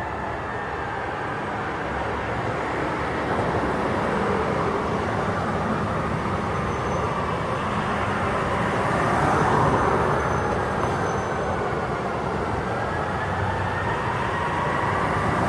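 Fire engine sirens wailing in overlapping slow rising and falling sweeps, gradually getting louder, over street traffic.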